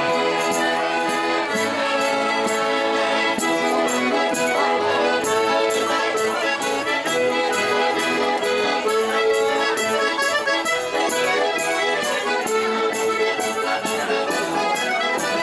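Live traditional folk music: an accordion playing a lively tune over a steady, regular percussion beat.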